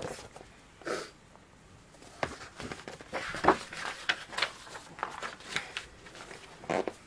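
Pages of a picture book being handled and turned: soft paper rustles and light taps, with a short rustle about a second in and another near the end.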